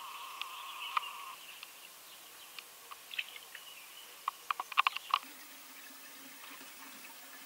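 Faint outdoor garden-pond ambience: a steady high tone for the first second and a half over a faint high hiss, a quick cluster of sharp clicks about halfway through, and a low steady hum that starts just past halfway.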